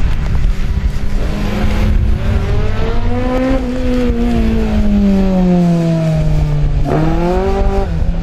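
Race car engine pulling hard through the course: its note climbs over the first few seconds and then sinks slowly. About seven seconds in it jumps sharply in a quick rev blip, then drops again.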